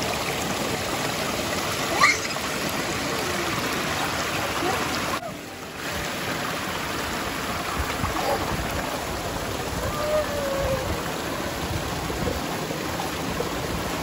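Small waterfall pouring into a shallow pool, a steady rush of water, with a child's voice calling out briefly a few times. A short sharp sound stands out about two seconds in.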